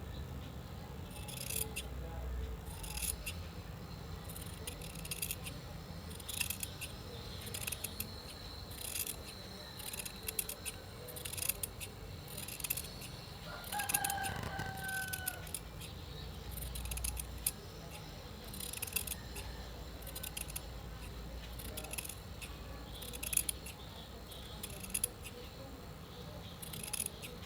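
Fabric scissors snipping through cloth again and again, about one cut a second. Roughly halfway through, a rooster crows once in the background.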